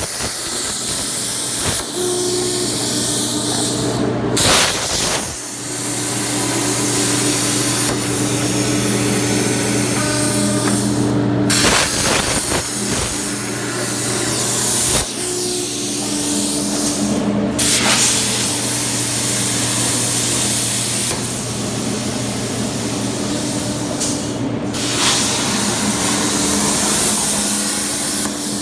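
A CNC tracker's cutting torch cutting 3/8-inch steel plate: a loud, steady hiss over a low machine hum. The hiss cuts out briefly several times.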